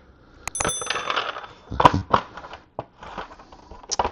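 Hard plastic Lego pieces and plates clicking and clattering as they are handled, with crinkling of the clear plastic parts bags. There are sharp irregular clicks, one about half a second in with a short high ring.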